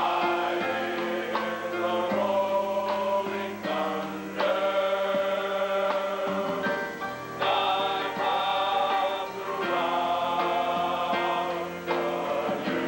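Large mass choir singing a gospel hymn medley in long held chords, each chord changing after a second or two.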